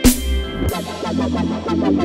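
Electronic background music: a sharp crash-like hit at the start, then a run of quick synth notes over a steady bass.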